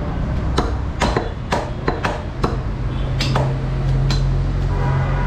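Butchers' cleavers chopping beef on wooden log chopping blocks: a quick, irregular series of sharp chops about every half second, over a steady low hum.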